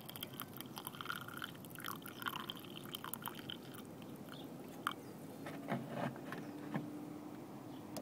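Hot water running quietly in a thin stream from the tap of a military water and ration heater into a coffee mug, with scattered small clicks and ticks. A low steady hum comes in about five and a half seconds in.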